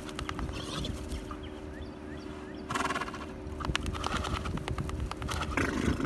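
A bay horse shaking itself off after getting up from rolling in the grass, then moving about. There is a loud burst of noise about three seconds in and another near the end.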